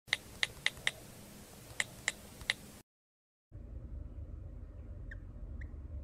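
Short, high chirps in two quick runs, four then three, then a brief dropout; after it, a low steady room hum with two soft chirps from a female cockatiel near the end.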